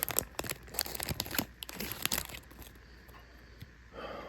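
Foil booster pack wrapper being torn open and crinkled by hand, a dense run of crackling rustles that dies down after about two and a half seconds.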